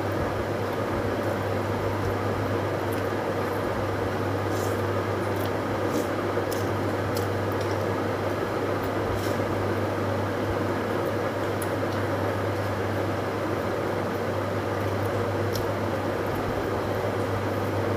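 A steady mechanical hum with a low drone and an even hiss, unchanging throughout. Faint small clicks of eating by hand are scattered over it, most of them in the first half.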